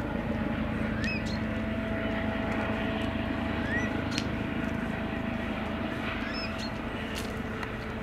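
Airbus Helicopters EC135 twin-turbine helicopter flying low on its approach: steady rotor and turbine noise with a steady whine, easing off slightly near the end.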